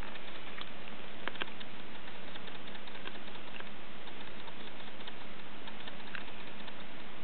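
Steady hiss with a faint low hum, and a few light scattered clicks.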